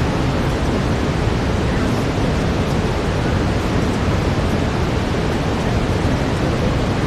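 Steady brown noise, an even, unbroken rush weighted toward the low end.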